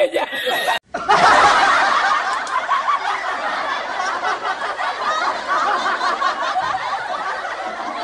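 Many people laughing together in a dense, continuous laugh that starts after a brief break about a second in.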